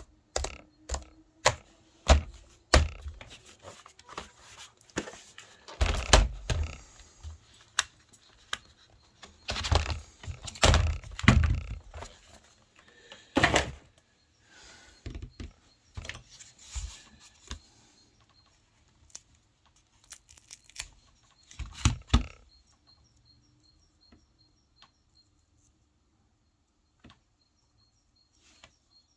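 Laptop parts being handled during disassembly: a busy series of sharp clicks and knocks, dense for about twenty seconds and then only a few scattered taps.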